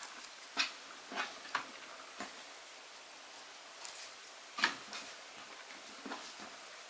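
Slime being handled by hand, giving scattered, irregular small sticky clicks and pops.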